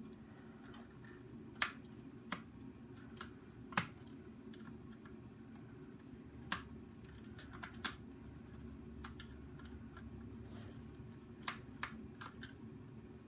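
Scattered sharp plastic clicks and taps, about a dozen, irregularly spaced, as the parts of a Nerf Hyperfire blaster are handled during disassembly, over a steady low hum.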